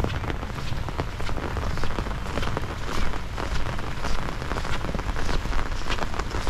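Heavy rain falling steadily, with many irregular sharp drop impacts close by.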